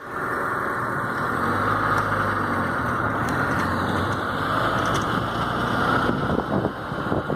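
A car driving, with steady engine and tyre noise.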